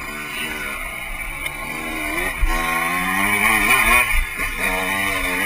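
Dirt bike engine heard on board, revving up and down as it is ridden along a trail. About halfway through it gets louder and the revs climb, then rise and fall with the throttle.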